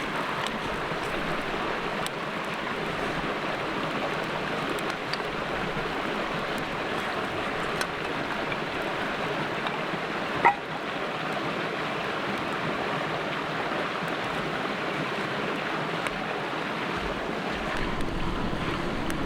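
Creek water rushing steadily, with a single sharp snap about ten seconds in.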